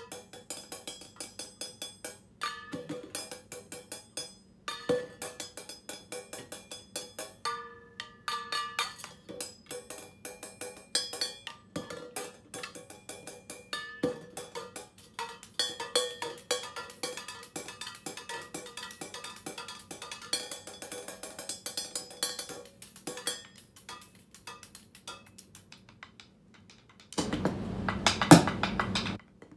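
Sticks tapping a cymbal laid flat on the floor and small objects beside it, a fast, irregular patter of ringing metallic hits. Near the end comes a louder, denser stretch of noise lasting about two seconds.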